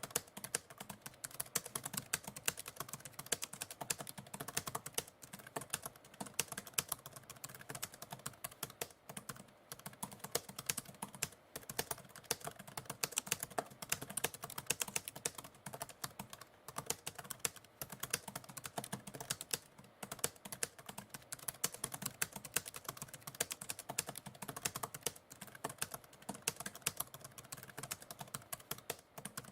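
Typewriter keys clacking in a fast, continuous run of strokes, broken by short pauses every few seconds.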